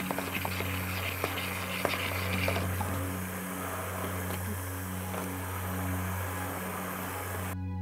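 Hand-held immersion blender running in a small metal saucepan, whizzing melted butter, egg white and salt into a frothy mix, with a steady motor hum. Clicks and splashing from the blade head in the liquid are heard during the first couple of seconds, then the blending goes on more smoothly.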